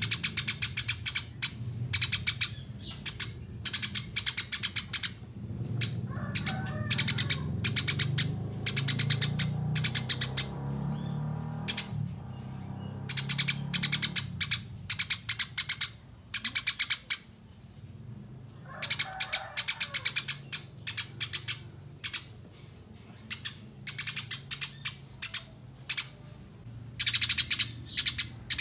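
Eurasian tree sparrows giving fighting chatter: fast runs of sharp, high chirps in short bursts, one after another with brief gaps. A faint low hum lies underneath.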